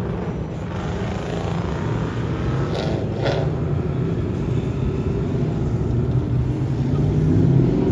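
Car engine running with a steady low rumble, with a brief hiss about three seconds in.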